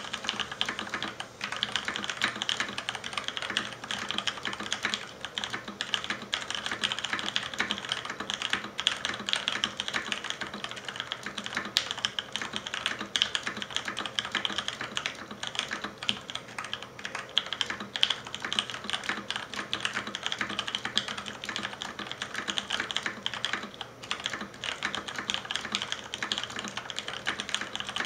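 Continuous fast typing on a mechanical keyboard with Cherry MX Ergo Clear tactile switches (62 g springs) under thick PBT keycaps, giving a steady stream of key clicks and clacks.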